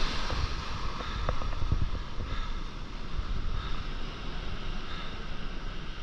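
Surf breaking and whitewater washing up the sand, with wind buffeting the microphone in gusts, strongest in the first couple of seconds.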